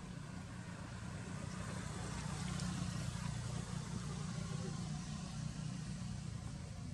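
Motorbike engine running steadily, getting somewhat louder two to three seconds in.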